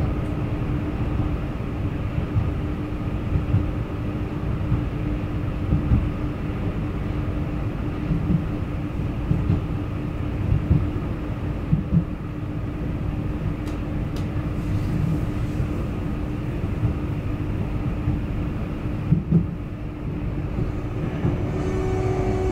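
Hamburg U-Bahn DT4 metro train running, heard from inside the car: a steady rumble of wheels on track under a constant hum, with occasional knocks. Near the end a whine sets in.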